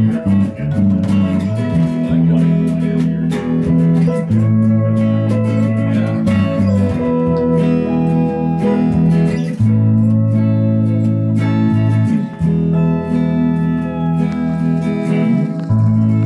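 Pedal steel guitar playing held chords that slide and bend in pitch, over a bass guitar line of long low notes that change every few seconds.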